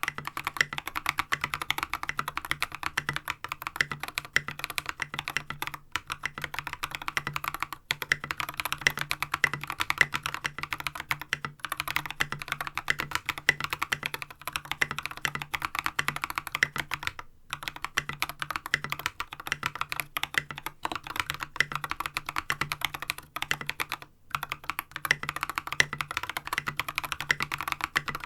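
Fast, continuous typing on a mechanical keyboard with lubed Holy Panda tactile switches and SA-profile ABS keycaps, a dense stream of keystroke clacks broken by a few brief pauses.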